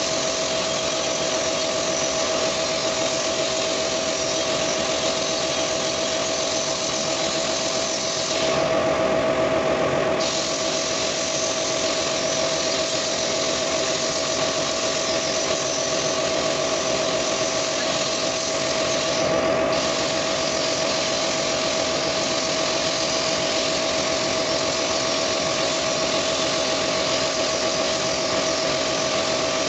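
Steady machine running noise with a constant whine, its high hiss dropping out briefly about eight seconds in and again near twenty seconds.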